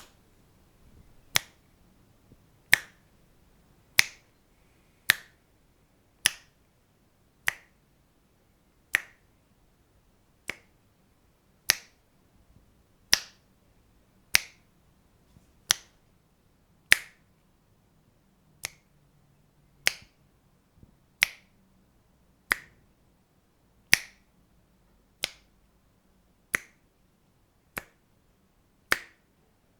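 Fingers snapping one at a time, a single sharp crisp snap about every second and a half with quiet between, some louder than others.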